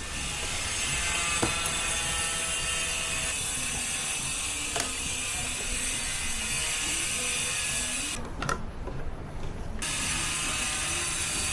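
Ratchet wrench clicking steadily as it works engine cover bolts, pausing for a moment near the end before starting again.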